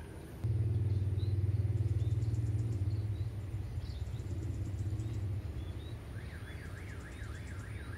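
A motor engine running with a steady low rumble, starting suddenly about half a second in and easing off after a couple of seconds, with small bird chirps. From about six seconds a high warbling tone rises and falls about three times a second.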